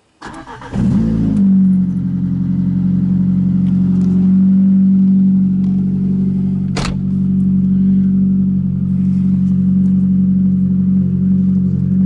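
Lada 2114's four-cylinder engine cranked by the starter and catching within about a second on a cold start, then idling steadily and loudly through a very loud aftermarket exhaust. A single sharp click about seven seconds in.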